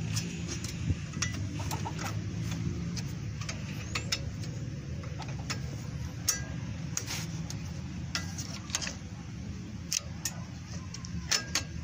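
Irregular sharp metallic clicks and taps as a new brake pad and its clip are worked into a disc brake caliper with fingers and a screwdriver, over a low steady background sound.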